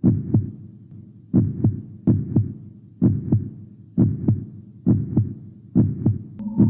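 Heartbeat sound effect: pairs of low thumps, lub-dub, about once a second. A steady droning tone joins near the end.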